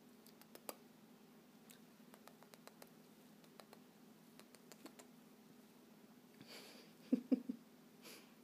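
Faint scattered clicks and soft fleece rustling as a sun conure plays with fingers inside a robe, over a faint steady hum. A short cluster of louder low knocks comes about seven seconds in.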